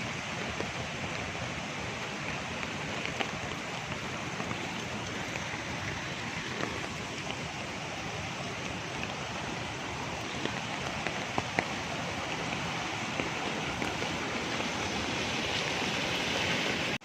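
Heavy rain falling: a steady hiss with a few sharp drop taps here and there.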